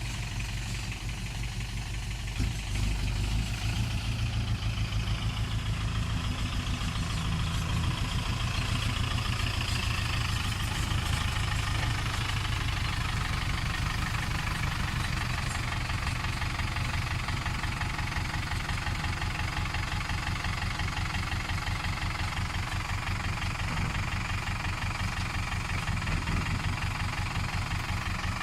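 Heavy diesel engine running steadily with a fast even pulse; it grows louder about three seconds in.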